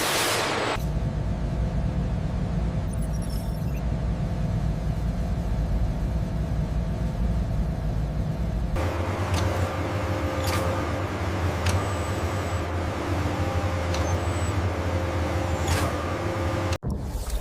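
Steady low machine rumble that changes about nine seconds in to a lower hum with a few faint steady tones and several sharp clicks, then cuts out briefly near the end.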